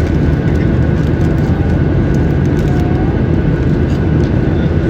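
Steady, loud rumble of an airliner's jet engines heard inside the cabin, with a faint steady whine above it.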